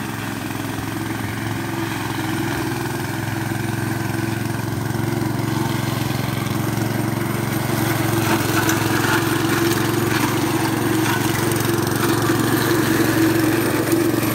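Walk-behind brush cutter's 7 hp petrol engine running steadily under load as the machine is pushed through scrub, its belt-driven blade spinning. It grows louder over the second half.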